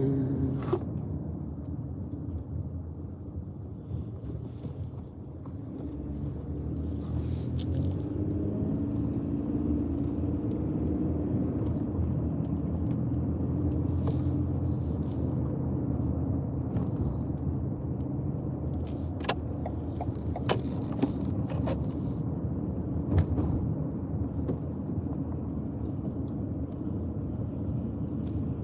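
Car driving along: steady engine and road rumble, with the engine note rising briefly about six to ten seconds in and a few sharp clicks later on.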